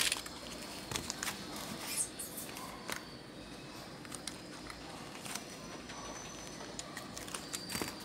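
Scattered light clicks and taps as a small circuit board and soldering tools are handled and set down on a work mat, over a low steady hiss.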